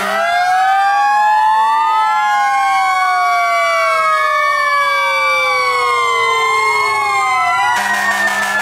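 Several fire truck sirens wailing at once in a parade, their rising and falling tones overlapping, one sliding slowly down for about six seconds. A steady horn blast starts near the end.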